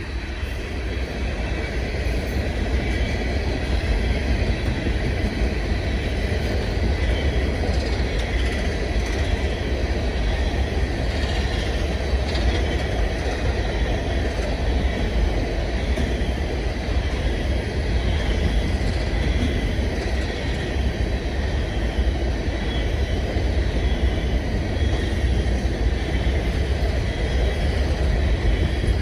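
Norfolk Southern freight train rolling past steadily: a continuous rumble of wheels on the rails, with a faint high steady ring above it.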